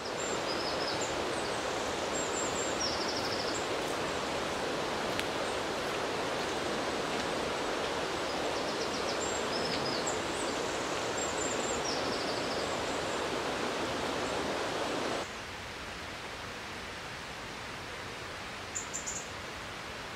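Steady rush of flowing water from a stream or waterfall, with small birds chirping over it now and then. About fifteen seconds in the rushing drops suddenly to a quieter, steady hiss, and a few brief chirps sound near the end.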